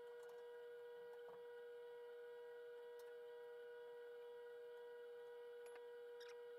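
Near silence: a faint steady hum, with a few faint light clicks.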